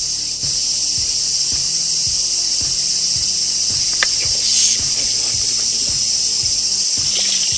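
A loud, steady, high-pitched chorus of insects droning without a break. One sharp click comes about four seconds in.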